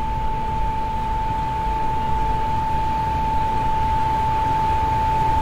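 An electronic soundtrack drone: one steady high-pitched tone held without a break over a low rumbling noise bed, slowly growing a little louder.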